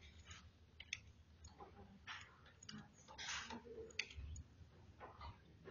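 Faint, scattered clicks of a computer mouse, with a couple of soft hissing rustles in between.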